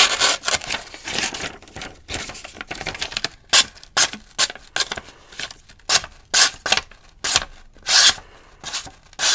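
Kizer Feist XL folding knife slicing through a sheet of printer paper, a quick series of short cutting strokes at uneven intervals, some much louder than others. The blade is sharp and cuts cleanly.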